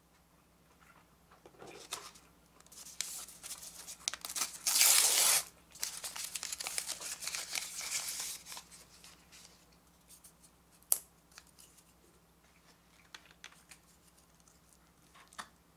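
Paper sleeve of disposable wooden chopsticks torn open and crinkled, loudest about five seconds in and going on for a few seconds more. A single sharp snap near the middle, as the wooden chopsticks are split apart, followed by a few light taps.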